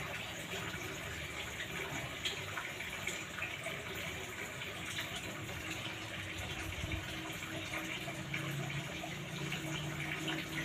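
Steady rushing background noise, like water running, with a faint low hum that comes in about halfway through.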